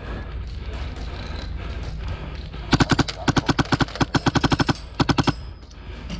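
Airsoft gun firing several quick bursts of rapid shots, about a dozen a second, starting a little under three seconds in and stopping after about two and a half seconds.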